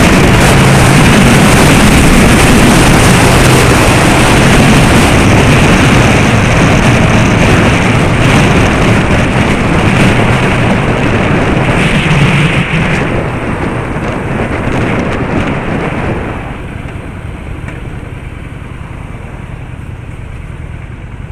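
Loud road and wind noise of a moving car with a low engine hum, falling off sharply about three-quarters of the way through.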